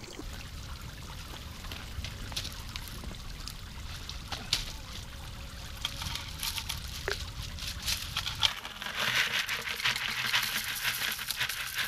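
Water splashing steadily from a pond fountain, with scattered clicks of handling. Near the end, gravel poured from a bucket rattles into a plastic pond basket for a few seconds.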